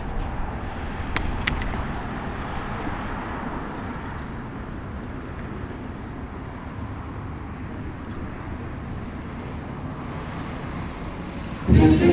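Steady outdoor background of distant road traffic, with two sharp clicks about a second in. Music starts suddenly and loudly just before the end.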